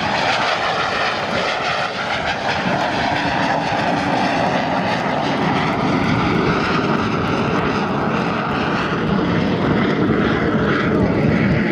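Aermacchi MB-339 jet trainer flying past, its single turbojet giving a steady rushing jet noise that grows slightly louder near the end.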